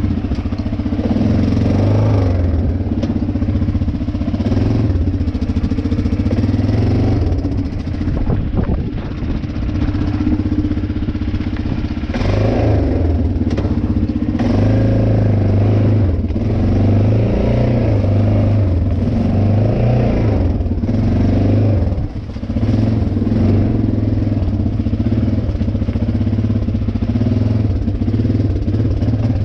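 ATV engine running at low speed as the quad crawls over a rocky slab trail, its note rising and falling with the throttle. A cluster of knocks and rattles comes about eight seconds in, and the engine eases off briefly near the three-quarter mark.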